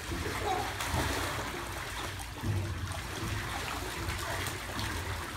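Swimming-pool water moving and trickling steadily as people wade and play in it, with no distinct splashes.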